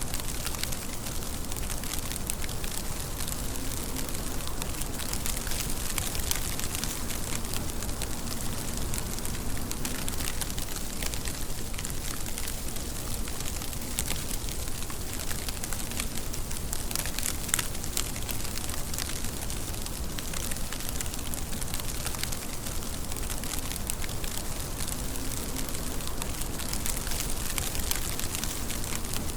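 Steady rain falling, an even hiss with many separate drop ticks.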